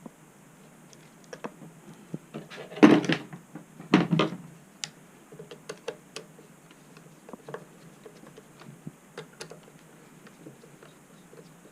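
Parts and tools handled during reassembly: scattered light clicks and taps, with two louder clattering bursts about three and four seconds in.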